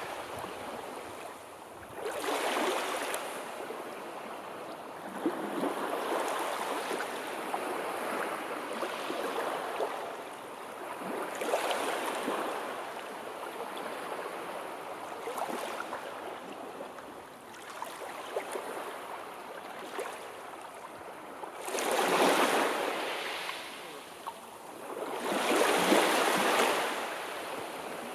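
Sea waves washing in and drawing back, a swell of hissing surf every few seconds, with two louder waves near the end.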